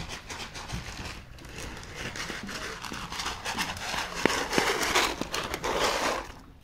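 Footsteps of a child running in sandals on a dirt road, coming closer and getting louder, with a couple of sharp clicks about four seconds in and a rustling stretch near the end.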